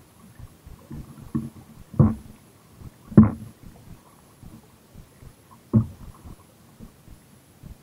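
Kayak paddling: a few irregular dull thumps from the paddle strokes, the loudest about two and three seconds in and another near six seconds.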